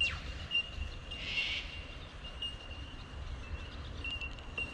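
A steady high-pitched insect drone that breaks off now and then, over a low rumble, with a short hissy chirp a little over a second in.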